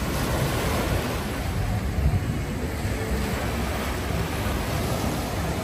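Steady rushing of lake waves washing in, with wind rumbling on the microphone.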